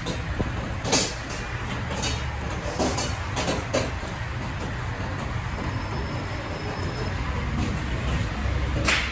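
Steady low rumble of background noise, with a few sharp clicks and knocks: one about a second in, several more around two to four seconds, and the sharpest near the end.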